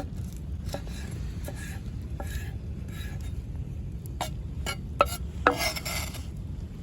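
Metal utensil scraping and clinking against a cooking pan in a string of short strokes, with two sharper clanks about five seconds in, over a steady low rumble.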